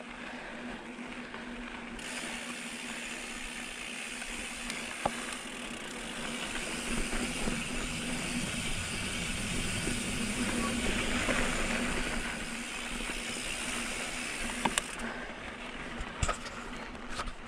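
Mountain bike riding down a dirt trail: wind rushing over the camera microphone and tyres rolling over dirt and rock, with a few sharp knocks as the bike hits bumps. The rush grows louder from about two seconds in and eases off near the end.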